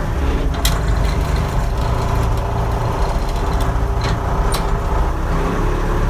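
1980 Case 580D backhoe's engine running steadily under way, heard from the operator's seat, with a few short sharp knocks from the machine.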